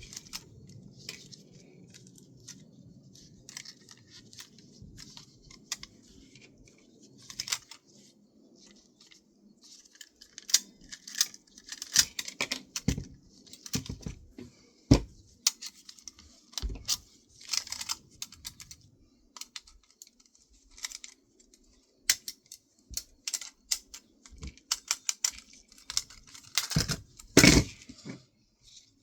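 Hands taking apart an external 3.5-inch floppy disk drive: scattered clicks, taps and rattles of plastic casing and small metal parts, with a few louder knocks about halfway through and near the end.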